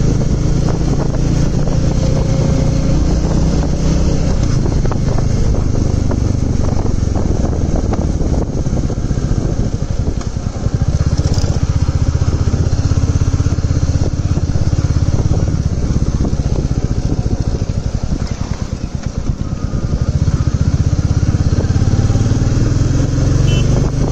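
Royal Enfield motorcycle engine running steadily under way. The engine eases off briefly twice, about halfway through and again a few seconds later, before pulling again.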